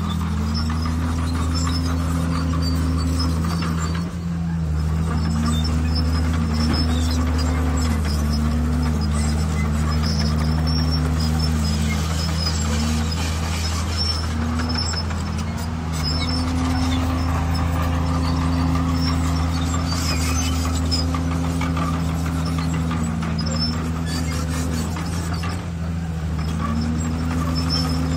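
Bulldozer's diesel engine running under load while pushing stone, its pitch dipping and recovering again and again as the load comes on and eases off.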